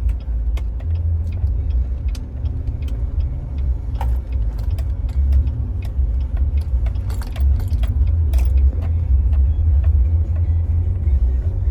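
Car cabin noise while driving: a steady low rumble of engine and road, with scattered small clicks and rattles.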